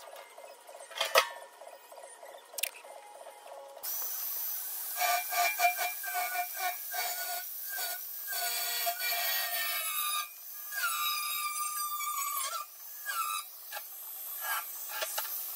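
Background music mixed with scraping and rasping tool sounds. It starts abruptly about four seconds in, after a quieter stretch of light, regular ticking.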